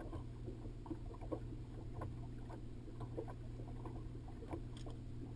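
Boat afloat with a steady low motor hum, and small irregular slaps and knocks of water against the hull.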